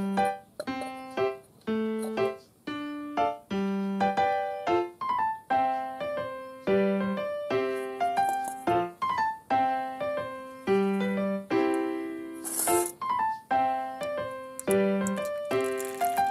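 Background piano music: a light keyboard tune of struck notes that each fade away, in an even, repeating pattern.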